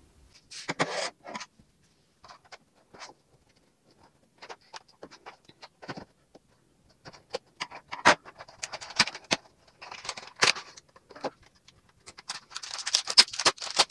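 A cardboard toy box being opened by hand: scattered clicks, taps and scrapes, with scissors cutting at the box. Near the end, a clear plastic blister tray crackles and rustles as it is pulled out.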